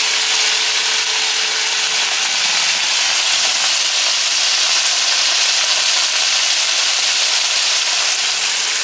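Chicken breasts sizzling in a frying pan: a steady, loud hiss of frying.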